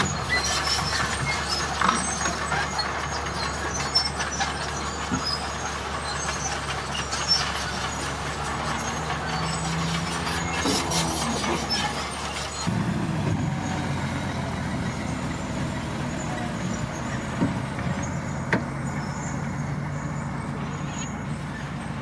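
Dump truck's diesel engine running as its raised bed tips out a load of soil and stones, with scattered knocks and clatter over the engine. About halfway through, the sound changes abruptly to a steadier, lower engine drone.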